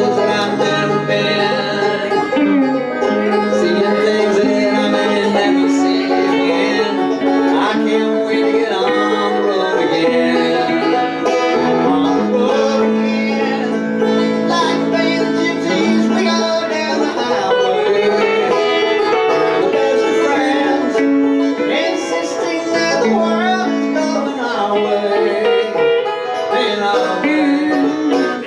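Banjo and electric guitar playing an instrumental passage together in a bluegrass-country style, live and unamplified banjo over a small guitar amp.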